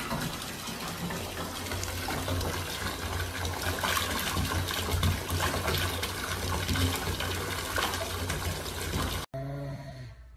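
Bath tap running full, water pouring into a bathtub as a steady rushing splash. It cuts off abruptly near the end.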